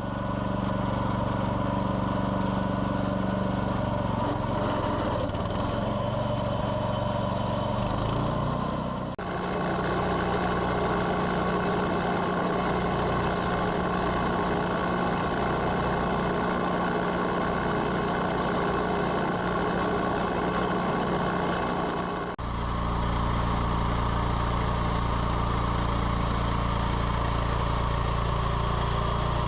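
Sawmill engine running steadily, with two abrupt changes in its sound about 9 and 22 seconds in.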